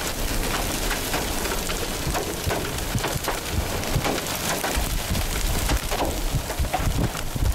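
Hail and heavy rain pelting an asphalt road and grass verge: a steady hiss of rain dotted with many sharp, irregular hailstone impacts, over a low rumble.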